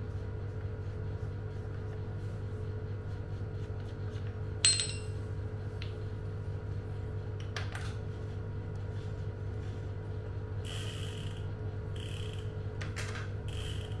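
Metal hand tools on a Shimano Ultegra road-bike crank. A sharp, ringing metallic clink comes about five seconds in, then a lighter click, and near the end three short scraping rasps as a hex key works at the crank arm.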